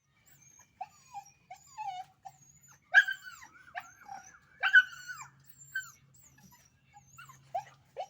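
Puppies fighting: a run of short yips, whines and yelps, with two loud yelps about three and five seconds in.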